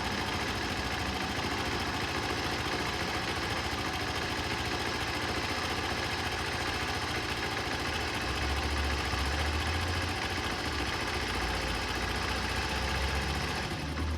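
Honda Super Cub 90's small air-cooled four-stroke single-cylinder engine running steadily at idle, a little louder from just past the middle.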